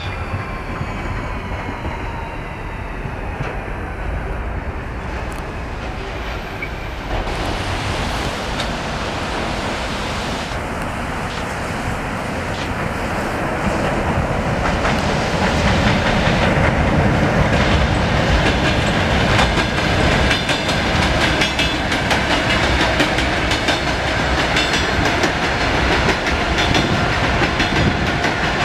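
Electric suburban trains passing on the rails: a Lastochka, then an older red-and-grey elektrichka. At first a steady rumble with a faint gliding whine, then louder from about seven seconds in. Through the second half comes a fast clatter of wheels over rail joints.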